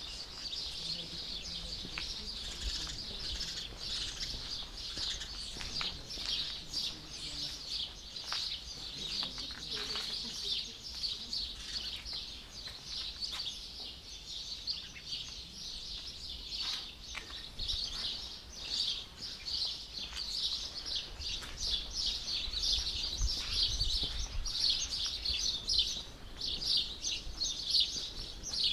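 Many small birds chirping in a dense, continuous chorus of short, rapid calls.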